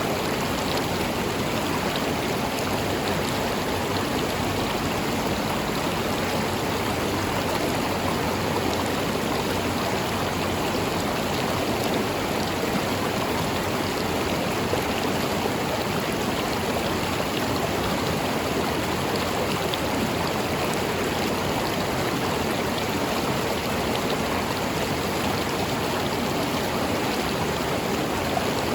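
River water flowing over rocks in a steady, even rush with some gurgling.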